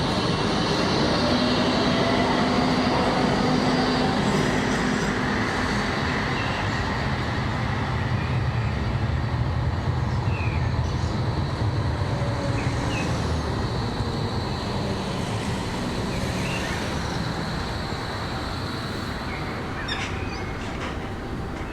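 Tram running through the depot with a steady rumble and a rising electric whine in the first few seconds as it gathers speed. The sound slowly fades toward the end.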